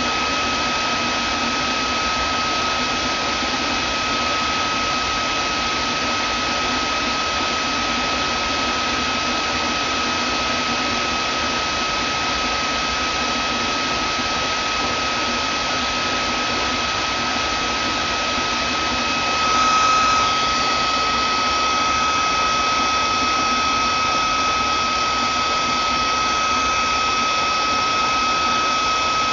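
Vacuum cleaner motor running steadily, a constant rushing noise with a steady high whine. About two-thirds of the way through it briefly swells and rises in pitch, then settles slightly louder.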